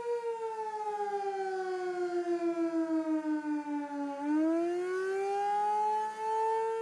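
Outdoor civil-defense warning siren sounding in a test. Its steady tone glides down in pitch over about four seconds, then rises back to the original pitch and holds, swelling and fading in loudness about three times a second.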